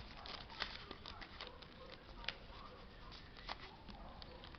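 Faint rustling of paper and drawing supplies being handled on a table, with a few sharp small taps.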